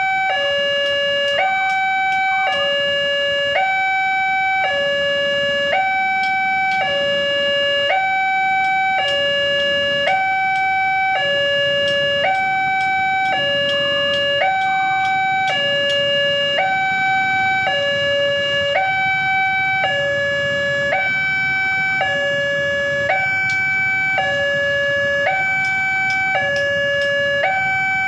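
Railway level crossing's electronic warning alarm from the horn loudspeaker on the crossing sign: a loud two-tone signal alternating steadily between a higher and a lower tone, each held about half a second or more. It signals that the barrier is down for an approaching train.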